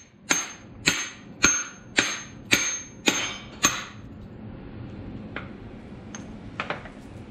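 Hammer blows on a socket and extension driving the rear balance shaft bearing out of a GM 3800 V6 engine block: seven sharp metallic strikes, about two a second, each with a short ring, then a few lighter taps later on.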